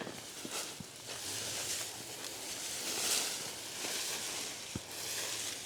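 Dry leaves and brush rustling with movement, swelling and fading, with a few small clicks.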